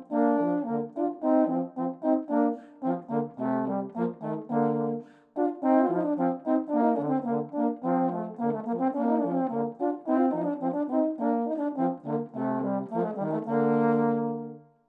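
Two euphoniums playing a duet in short, separate notes, both parts recorded by one player. A brief break about five seconds in, then the duet ends on a long held final chord that fades away near the end.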